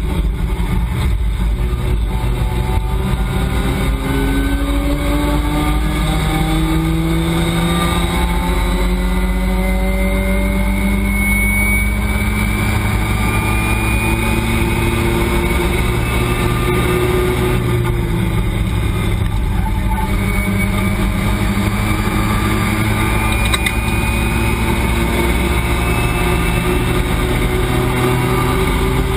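Race car engine heard from inside the cabin under hard acceleration, its pitch climbing steadily through a gear. About 18 seconds in it drops with an upshift, then climbs again.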